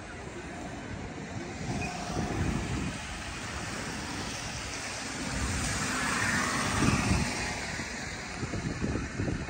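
A city bus driving past close by on a wet street: a rising hiss of tyres on wet road with engine hum, loudest about six to seven seconds in.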